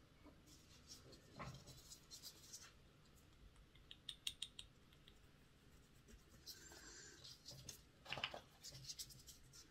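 Faint scratching and rubbing of a cotton bud polishing the commutator of a Hornby ringfield motor with T-cut, with a few small clusters of ticks about four seconds in and again near the end.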